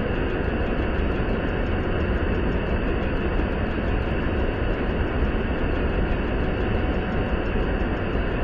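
Steady rush of a river cascade in high flow, the Towaliga River pouring over the wide rock ledges of High Falls.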